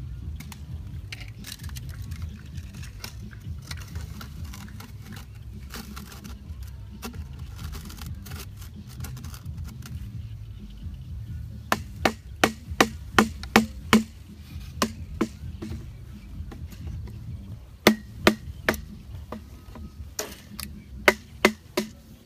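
Sharp knocks and clicks of hard plastic as PVC pipe pieces are handled and fitted together: a quick run of about six knocks starting about halfway through, then scattered ones near the end. Under them runs a low rumble of wind on the microphone.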